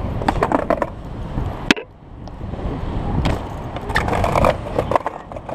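Skateboard wheels rolling on pavement with several clacks of the board, and one sharp loud clack about 1.7 s in.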